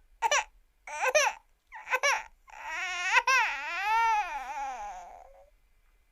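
Precious Pupp cartoon crying sound effect: three short sobs, then one long wavering wail that rises and falls in pitch and trails off downward.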